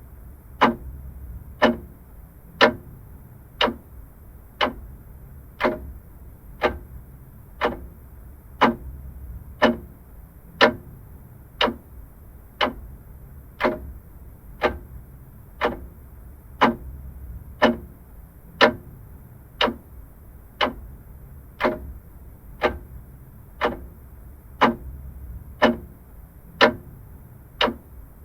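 Vintage mechanical clock ticking steadily, about one tick a second, over a faint low hum.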